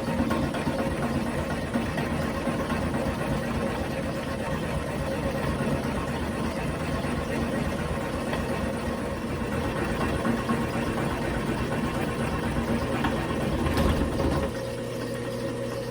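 Round-column milling machine taking a cut with a 3/4 inch end mill, giving a dense, rough machining rumble. About a second and a half before the end it drops to a quieter steady hum of the running machine.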